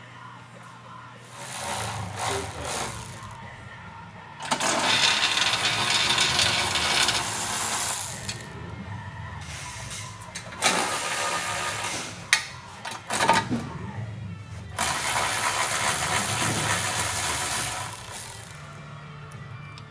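Quarter-inch power ratchet spinning bolts out of a MINI Cooper's front bumper reinforcement bar in four spells, two of them about three seconds long, with clicks and knocks of the socket and bolts between runs.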